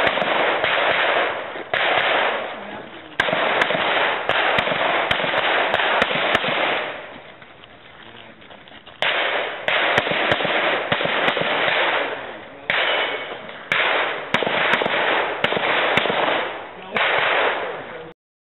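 Handgun shots fired in quick strings during a practical-shooting stage, each shot followed by a short ringing tail. There is a quieter stretch of about two seconds near the middle, and the firing stops abruptly near the end.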